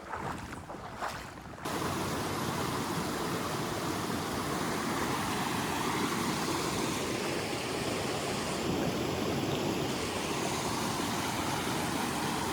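River water rushing over rocks in a steady, full rush that cuts in abruptly about two seconds in, where the current picks up; before that, quieter sounds of movement.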